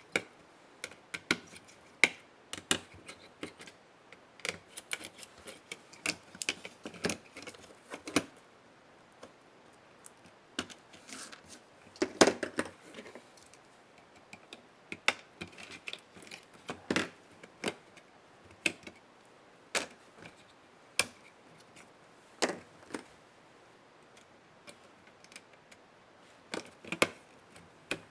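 Irregular clicks and light knocks of small plastic and metal laptop parts being handled and pried apart during disassembly.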